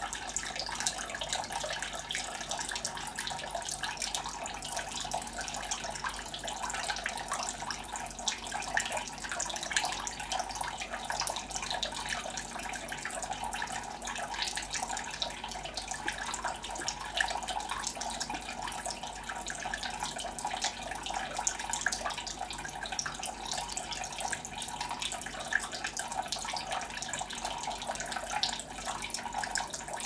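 Homemade tabletop waterfall fountain running: thin streams of water trickling and splashing down the rock tiers into a shallow pool, a steady patter.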